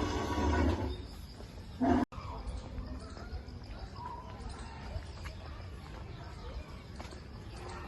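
Outdoor ambience with faint bird chirps and distant voices. A louder, noisier stretch with a low hum at the start ends in a brief loud noise and an abrupt cut about two seconds in.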